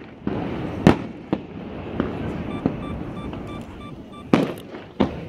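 Fireworks display: aerial shells bursting with sharp bangs, about six of them, the loudest about a second in and another strong one at about four and a half seconds.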